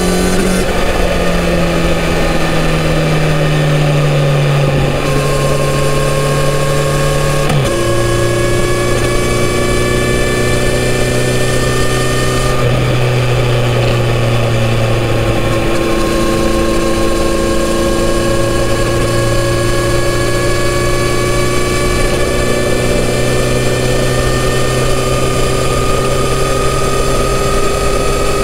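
Kawasaki Z900RS inline-four with its stock exhaust running at steady highway cruise. The note eases slightly lower for the first few seconds and shifts once at about eight seconds in, then holds steady and slowly climbs.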